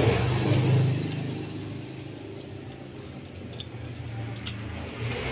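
Light metal clinks of steel pins and a motorcycle clutch gear being handled and fitted into place by hand, over a steady low hum.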